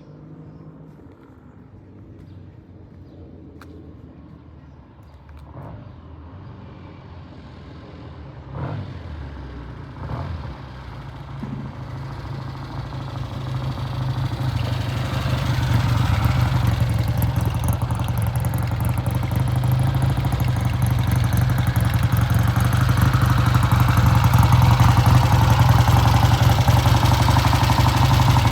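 Vintage British motorcycle engine coming closer, faint at first and growing steadily louder from about halfway through, ending loud and near.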